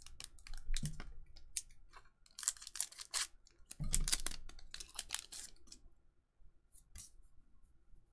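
Trading-card booster packs being opened and their cards handled at a table: scissors snips, card clicks and wrapper rustles in bunched bursts, densest in the middle, with a few single clicks near the end.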